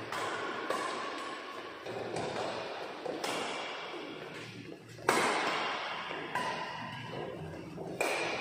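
Badminton rally: rackets striking the shuttlecock in a quick, irregular exchange, about ten sharp hits, each ringing on in the echoing hall; the loudest hit comes about five seconds in.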